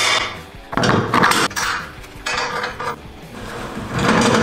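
Metal clattering and scraping in a few short bursts, from hand work on a push lawn mower with tools.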